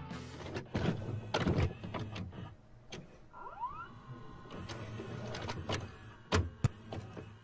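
VHS video cassette recorder mechanism loading and starting to play a tape: a series of mechanical clicks and clunks over a faint hum, with a short rising motor whine in the middle and the two loudest clunks close together near the end.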